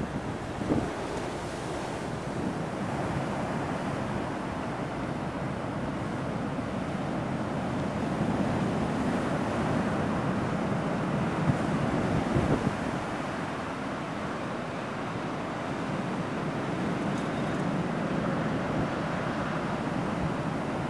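Storm-surge waves breaking and pouring over a seawall, a steady rush of surf. A 60–70 mph gale buffets the microphone throughout.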